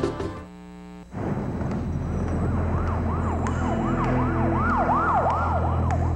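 Closing music fades out in the first second, then a low steady drone comes in. From about three seconds in, a siren-like tone sweeps rapidly up and down, about three times a second.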